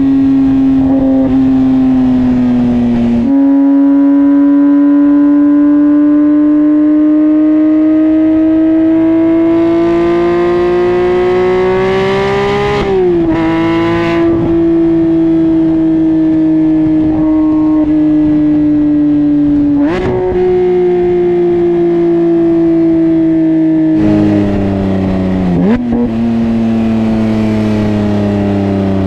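Porsche 911 GT3 flat-six exhaust note through an Akrapovic full titanium exhaust, on the move. The note climbs steadily in pitch through a long pull, then dips sharply at a gear change about 13 seconds in, with further quick changes in pitch near 20 and 26 seconds.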